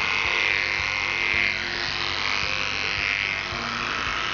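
Cordless pet clipper, fitted with a 30 blade under a 32 mm metal snap-on comb, buzzing steadily as it is run down a poodle's back leg. Its pitch swells and dips about once a second as the blade passes through the coat.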